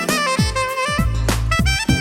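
Background music: jazz with a saxophone-like melody over drums and bass.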